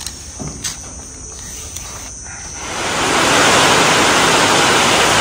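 Heavy tropical downpour setting in about halfway through: a loud, steady hiss of rain that swells up within about half a second and then holds. Before it, hands tossing shredded pomelo peel with starch in a metal basin make a few soft clicks and rustles.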